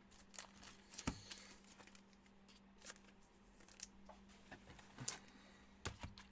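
Faint rustling and clicking of trading cards being handled and flipped, a dozen or so light ticks spread unevenly, over a steady low hum.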